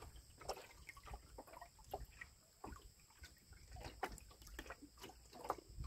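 Quiet riverside ambience: faint, scattered small ticks and light water sounds, with no steady source.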